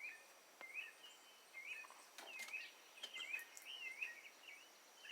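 Northern cardinal singing: a faint run of short, slurred whistled notes repeated about twice a second.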